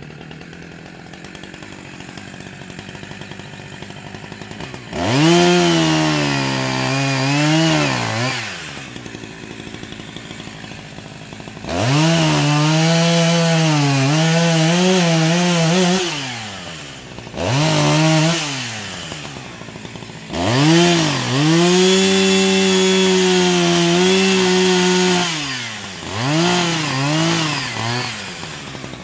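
Chainsaw idling, then revving up in five long bursts with the pitch dipping and recovering within each, as it cuts into a leaning tree trunk.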